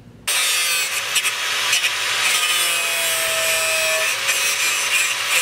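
A power tool cutting metal with a steady, harsh grinding noise that starts suddenly: cutting off the old transmission-mount tabs on the car's transmission tunnel.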